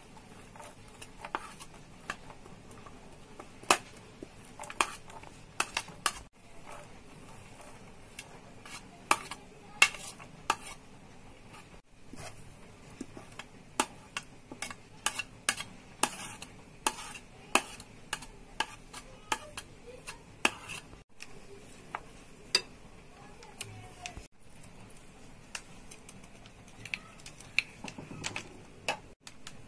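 A spoon and plate clinking and scraping against a glass mixing bowl as chopped vegetables are scraped in and the batter is stirred. The clicks and knocks are scattered and irregular.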